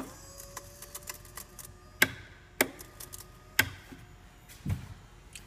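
A sharp click as a small switch for the bilge pump is flipped, then about four more separate clicks and knocks spread over the next few seconds.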